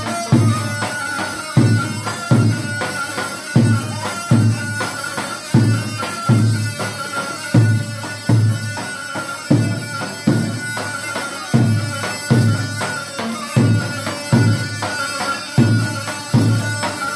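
Dabke music: a large tabl drum beaten with deep booms about every two-thirds of a second, with lighter stick taps between them. Over it runs a continuous, buzzing reed melody from a mijwiz.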